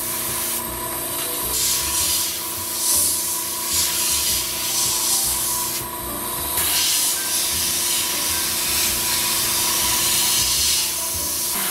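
Paasche H airbrush spraying ink, a hiss of air that swells and eases, over the steady hum of an Iwata Smart Jet compressor running.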